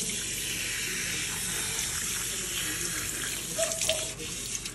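Water running steadily from a pull-down sink sprayer, splashing over a wet capuchin monkey and into the sink basin.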